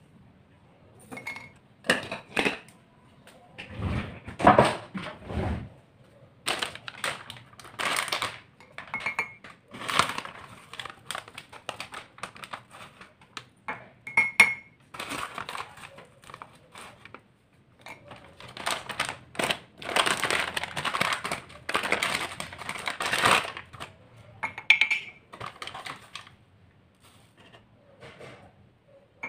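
A plastic spoon scooping instant coffee granules out of a glass jar and tipping them into a ceramic mug, with irregular scraping and rustling of the granules. Several short clinks against the mug ring briefly.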